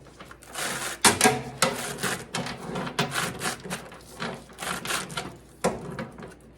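Bicycle chain being pulled by hand through a solvent-filled chain-cleaning tool, the links clicking and rattling over the tool's sprockets and brushes in uneven spurts, with a few sharper clacks.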